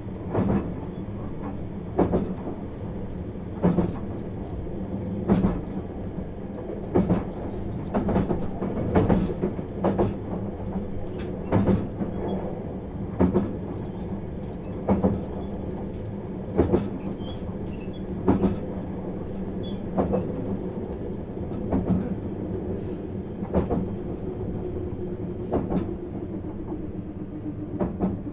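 Inside a 651 series electric train running along the line: a steady running rumble and hum, with the wheels clicking over rail joints about every 1.7 seconds.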